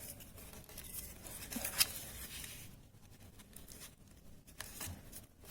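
Paper being handled and glued: light rustling and small taps of paper, with a sharper tick a little under two seconds in, growing quieter in the second half.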